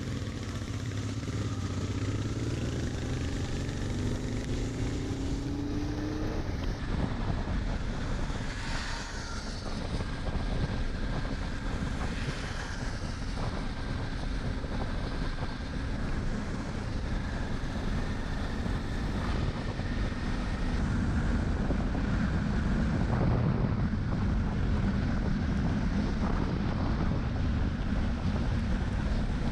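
Motorcycle engine accelerating, its pitch climbing over the first several seconds, then running steadily at road speed under wind noise on the microphone.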